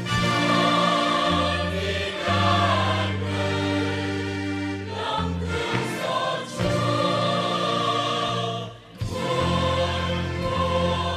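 Choir singing a hymn with accompaniment: long held chords over steady bass notes, with a brief drop in level about nine seconds in.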